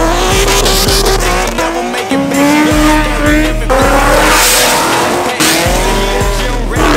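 Performance car engines revving hard as cars pull away, four rising runs of engine pitch one after another, over rap music with a heavy steady bass.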